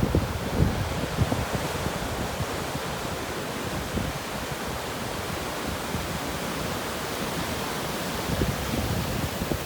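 Ocean surf as a steady rush of waves, with wind buffeting the microphone, gustier in the first second or so and then settling to an even wash.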